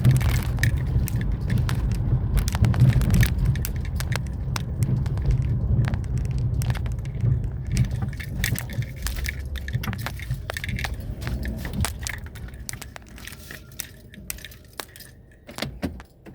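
Car slowing to a stop, heard from inside: the low rumble of the car in motion fades away over about fourteen seconds, with a crackle of many small clicks and crunches throughout.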